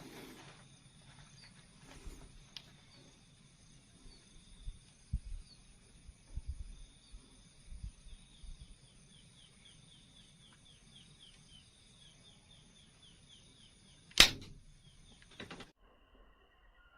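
A single sharp air rifle shot about 14 seconds in, over a steady high-pitched drone with a quick run of chirps before it and a few low thumps earlier on.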